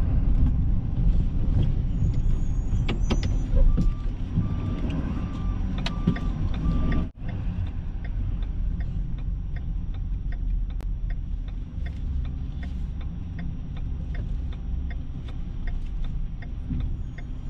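Vehicle cab interior: engine and road rumble as the truck manoeuvres slowly. A short run of five even beeps sounds near the middle, and a regular light ticking of about two a second runs through the second half.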